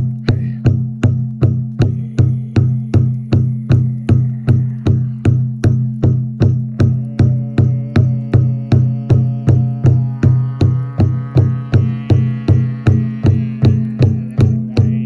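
Music: a steady drum beat of nearly three strokes a second over a low steady drone, with higher held tones coming in about halfway through.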